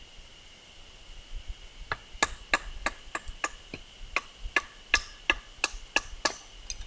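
Quick run of light chopping knocks on firewood, about three a second, starting about two seconds in and running on almost to the end.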